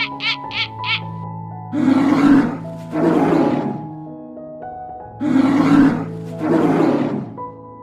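Background music with held notes; over it an animal gives four loud, rough calls in two pairs, about a second apart within each pair. A short run of quick, repeated calls is heard at the very start.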